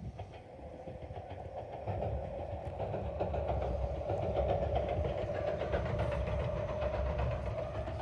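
A train running past, a steady rumble with a held whine that grows louder about two seconds in.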